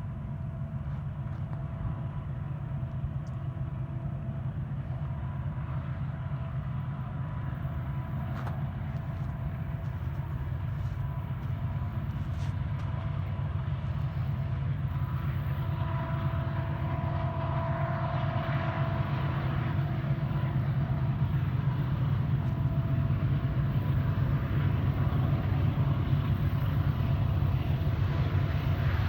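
Low, steady rumble of an approaching Union Pacific freight train's diesel locomotives, growing gradually louder.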